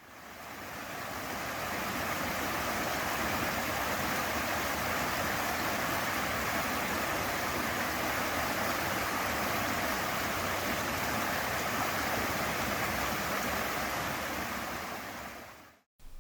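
A steady, even rushing noise that fades in over the first couple of seconds and fades out near the end.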